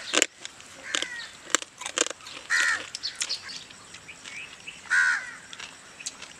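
A crow cawing, three harsh calls a second or two apart, with sharp clicks between them.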